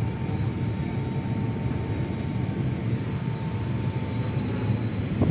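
Steady low engine rumble heard from inside a crowded bus. A faint thin whine runs over it and fades out near the end.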